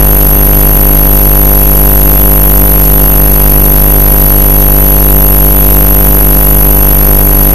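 Air-driven gravity-feed paint spray gun and its air compressor running while paint is sprayed: a loud, steady hum with hiss that does not change and overloads the recording.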